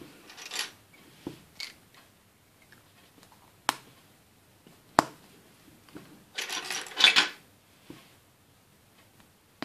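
Small hard plastic toy parts being handled and fitted together: scattered light clicks and taps, one sharper click about halfway, and a second of scraping rattle a little later, as a Playmobil plant's leaves are pushed into its plastic pot.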